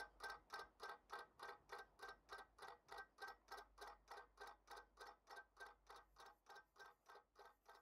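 Quiet, even ticking of a clockwork clock or watch movement, about four ticks a second, getting fainter toward the end.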